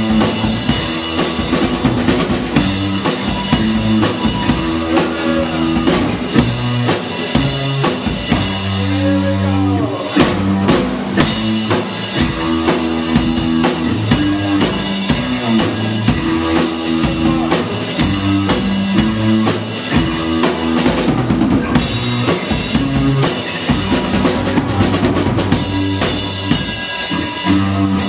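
Live rock band playing: electric guitar over a drum kit, with the bass drum prominent.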